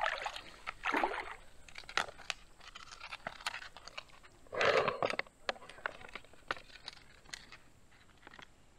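Creek water swishing and sloshing in several bursts, the loudest about five seconds in, with small clicks and crinkles in between, as a plastic water-filter bag is dipped and filled.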